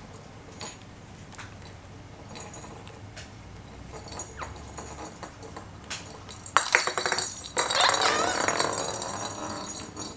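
A plastic cage ball with a bell inside clinks and rattles as a budgerigar pushes it across a wooden floor, ending in a quick run of rattling clicks. Then, for the last two seconds or so, the budgerigar chatters and warbles loudly.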